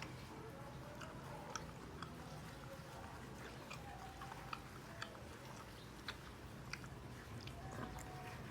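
A person chewing crispy pata, deep-fried pork leg, close to the microphone, with scattered sharp crunching clicks at an irregular pace.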